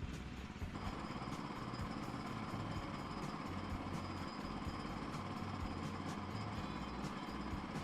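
Woodland Mills HM122 portable band sawmill running on its engine. A steady higher whine joins suddenly under a second in and holds.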